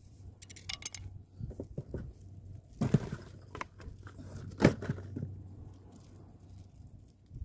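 Plastic tackle box being handled: its lid and latches clicking and knocking as it is opened and shut again, with two louder knocks about three and four and a half seconds in.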